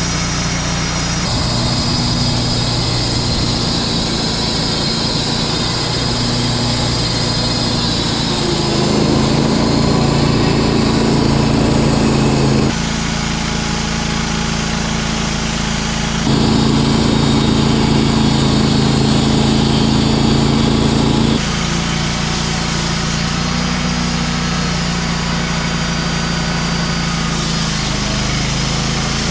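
Wood-Mizer LT35 Hydraulic portable sawmill's engine running steadily. Its pitch and loudness shift abruptly several times, louder for a few seconds at a stretch.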